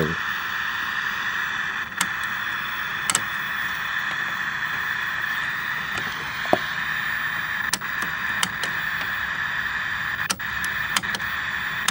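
Steady static hiss from a vintage Panasonic tube colour TV's speaker, tuned to no station. A few sharp clicks come over it as the tuner knobs are handled.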